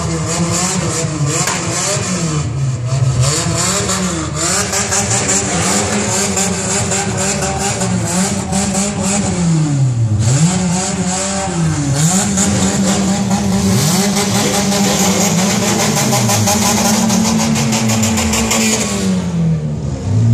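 Car engine revved hard over and over, the revs dropping and climbing back repeatedly, then held high for several seconds in the second half before falling away near the end.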